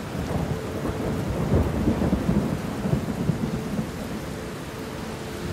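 Rain with rumbling thunder, the rumbles heaviest between about one and a half and three seconds in, over a faint steady drone of a few held tones.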